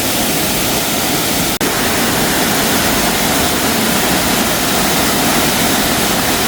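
Waterfall: a loud, steady rush of falling water. It breaks off for a split second about a second and a half in, then resumes.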